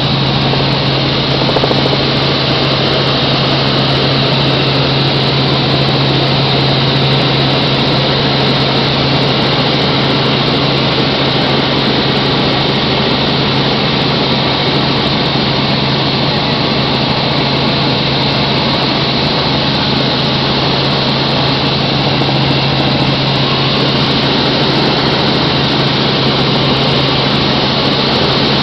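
Helicopter in flight: loud, steady engine and rotor noise with a constant low hum that never changes.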